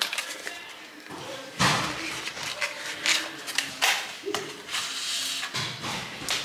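Clear plastic blueberry punnet being handled and set down on a countertop: several sharp clicks and knocks of the plastic, the loudest about a second and a half in, with rustling between them.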